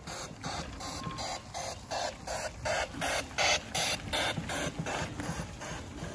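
Miniature ride-on steam wagon chuffing as it drives: a steady rhythm of hissing puffs, about four a second, quickening and getting a little louder midway.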